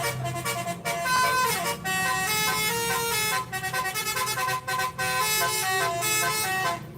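Bus telolet horn: a set of musical air horns playing a melody of held notes that step up and down, several tones at once, with a brief break near the end. A low steady hum runs underneath.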